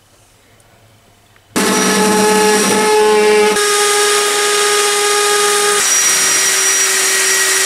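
A handheld power tool starts about a second and a half in and runs loudly with a steady whine, cutting through material to make a lamp. Its pitch steps down slightly a couple of times under load, and it stops near the end.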